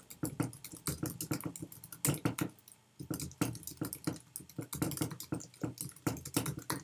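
Typing on a computer keyboard: a run of quick, irregular key clicks, with a short pause about halfway through.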